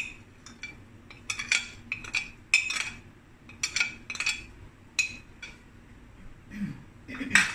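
Metal spoon clinking and scraping against a glass bowl while powder is scooped out of it: a dozen or so short, ringing clinks at uneven intervals.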